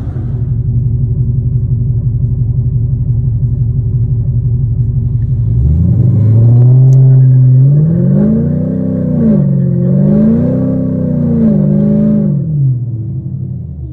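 Supercharged V8 engine at the drag-strip start line, idling with a steady rumble, then revved up about six seconds in and held high. It swells up and down twice more before dropping back to idle near the end.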